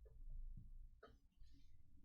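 Faint handling of trading cards: a couple of soft clicks and a brief rustle, otherwise near silence.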